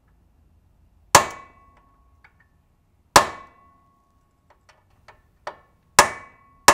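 Hammer striking a steel punch to drive a twist rivet into the engine's cylinder head: four sharp metallic blows, each with a short ring after it, the last two coming close together near the end.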